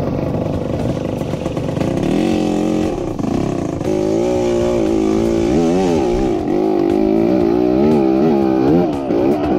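Dirt bike engine running, fairly steady at first, then revving up and down repeatedly from about halfway through as the throttle is worked.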